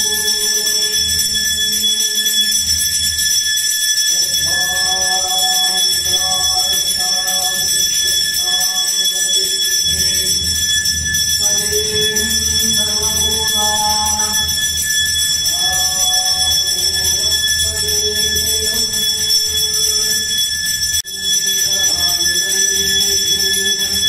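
A bell ringing continuously for the aarati, a steady unbroken ringing tone, under a devotional chant sung in drawn-out phrases that start and stop every few seconds.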